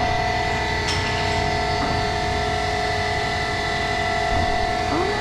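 Steady mechanical drone of a running workshop machine, a hum holding several constant tones over a noisy rumble, with one sharp click about a second in.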